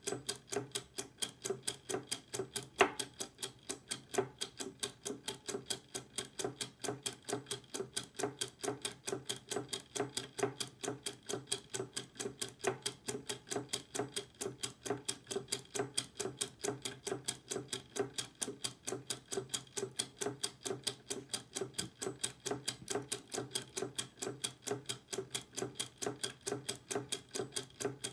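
Clockwork gear mechanism running, ticking evenly about four times a second. One louder click about three seconds in.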